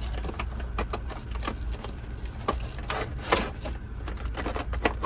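Hard clear-plastic packaging tray clicking and crackling as it is opened and a ratchet is lifted out, in irregular sharp clicks with a louder knock about three seconds in and another at the end.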